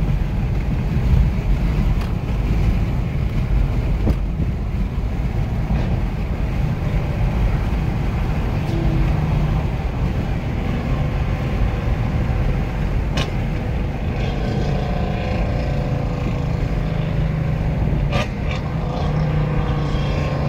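Steady low engine and road rumble of a car cruising on a highway, heard from inside the cabin, with a couple of short clicks in the second half.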